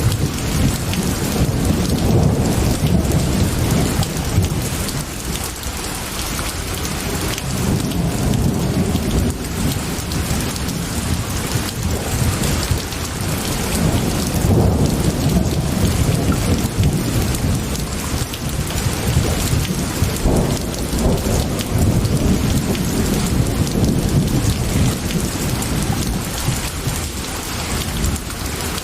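Steady heavy rain with low rolling thunder underneath, the rumble swelling and fading several times.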